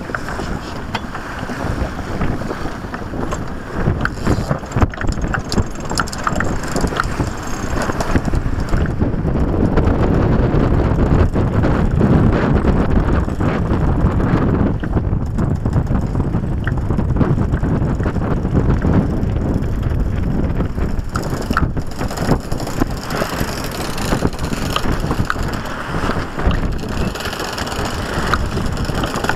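Wind buffeting the microphone with a steady rough rumble, overlaid by rapid ratcheting clicks of a deck winch being cranked to hoist the gaff mainsail.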